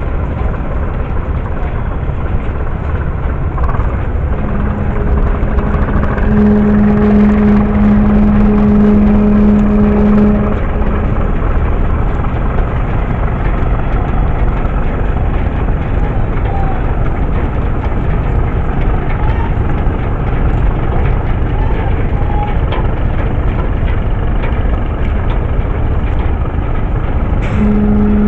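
River passenger launch running with a steady low rumble, while a ship's horn sounds one long steady blast from about 4 to 10 seconds in and starts another near the end.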